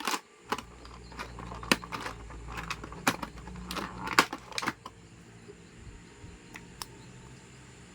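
Light clicks and taps of a plastic action figure and its packaging being handled, several in the first five seconds, then a faint steady hum.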